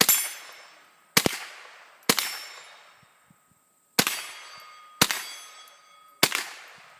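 Rifle shots fired at steel targets: six shots about a second apart, with a pause of nearly two seconds after the third, each followed by the ringing of a struck steel plate.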